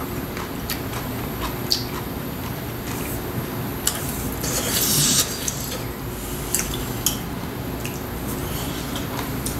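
Eating at the table: scattered sharp clicks of chopsticks against bowls, and chewing, with a longer, louder rustling noise about five seconds in, over a steady low hum.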